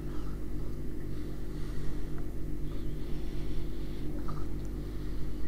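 Steady low electrical hum made of several even low tones, with no speech over it.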